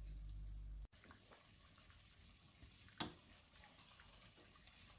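Dandelion sugar syrup simmering faintly in a stainless steel pot, with small bubbling crackles. A low steady hum cuts off abruptly just under a second in, and a single sharp clink about three seconds in is a metal spoon touching the pot as the foam is skimmed.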